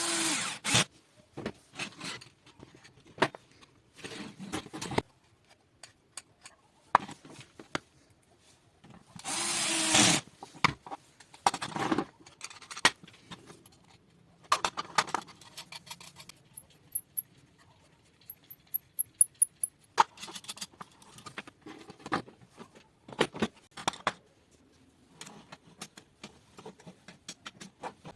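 Scattered clicks, knocks and scrapes of parts and hand tools being handled, with two longer rasping bursts, one at the start and one about nine seconds in.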